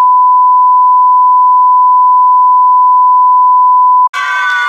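A loud, steady censor bleep: one unbroken high beep laid over the speech, which cuts off about four seconds in as voices come back.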